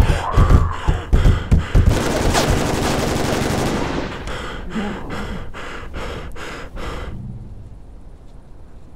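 Rapid gunfire, several shots a second in repeated runs, stopping about seven seconds in.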